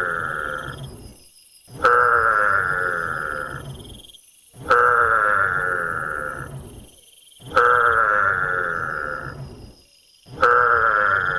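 An animal call repeated at an even pace, about every three seconds: each call starts suddenly, lasts about two seconds and fades out before the next.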